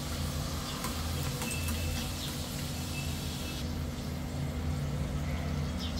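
Puri deep-frying in hot oil in an iron kadai: a steady sizzle with a low, even hum underneath.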